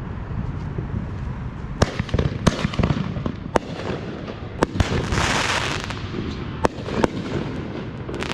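Fireworks going off: a string of sharp bangs starting about two seconds in, with a hissing burst around the middle.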